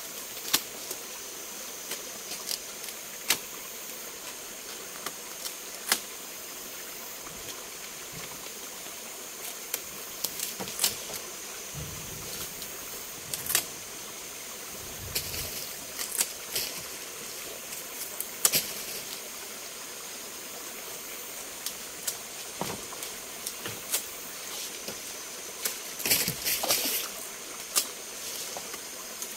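Steady rushing of a mountain stream, with scattered sharp knocks and clinks throughout and a short cluster of them near the end.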